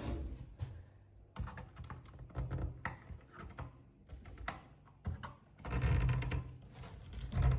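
Irregular clicks, taps and dull thumps of handling and movement, coming in clusters with short quiet gaps; the loudest cluster is about six seconds in.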